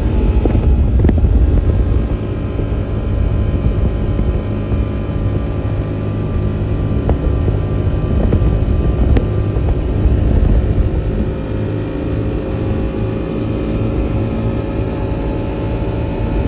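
Vehicle engine running at a steady speed under way, with a low rumble and a few light knocks.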